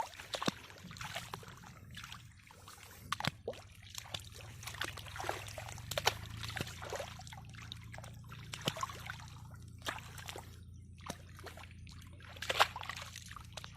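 Shallow muddy pond water sloshing and dripping, with many small splashes from hands working through it. The splashes come irregularly, with one louder splash near the end.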